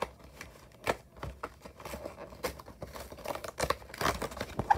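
Cardboard Disney Doorables toy box being handled and pulled open: a run of short scrapes, clicks and crinkles that gets busier about halfway through.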